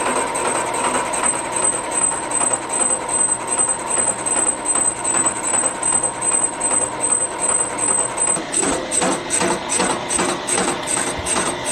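Machine tool running at slow speed, cutting metal off a steel coupler: a steady high whine with a rhythmic clatter about two to three times a second that grows sharper about eight seconds in.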